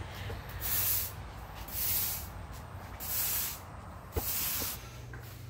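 Push broom's bristles swept across a concrete floor: four swishing strokes about a second apart.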